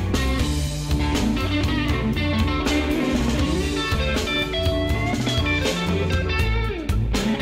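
Background music: guitar over drums with a steady beat.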